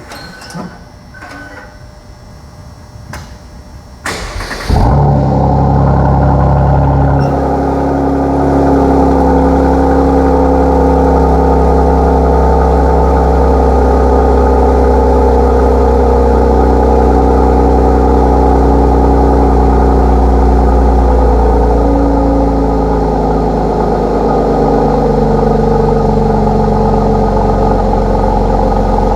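2017 Mercedes-AMG C43's twin-turbo V6 cold-starting with the AMG performance exhaust open. A few clicks come first, then a brief crank about four seconds in. The engine catches with a loud flare and settles into a steady fast cold idle that eases down a little near the end.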